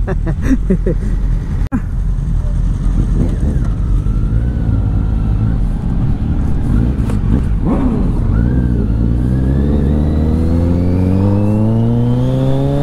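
Kawasaki Z900's inline-four engine pulling away at low revs, then revving up smoothly with a steadily rising pitch over the last few seconds as the bike accelerates.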